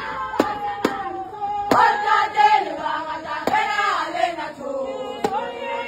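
A group of women singing together in unison, with sharp handclaps keeping time, about two a second at first and only now and then after that.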